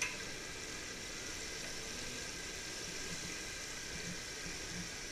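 Battered chicken pieces deep-frying in hot oil in a large aluminium wok, a steady sizzle, with one short knock at the very start.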